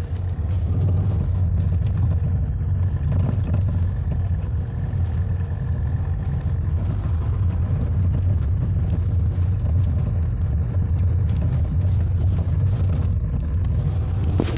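A car driving on the road, with a steady low rumble and faint scattered ticks. The car has a steering intermediate shaft noise that has persisted after the steering rack was replaced.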